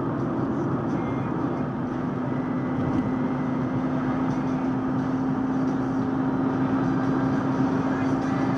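Car travelling at highway speed, heard from inside the cabin: steady engine and tyre noise with a constant low hum.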